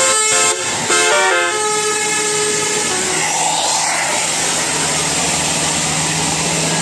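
Basuri multi-tone 'telolet' bus horn playing a short melody of stepping notes, ending about a second and a half in. After it, a steady low hum and hiss from the bus.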